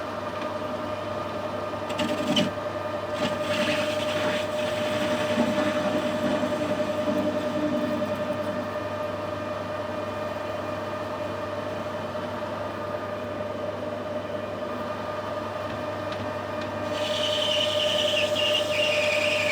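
Metalworking machine tool running with a steady whine and low hum. Near the end a higher, brighter screech joins in as the cutter starts taking metal off a 316 stainless steel bar.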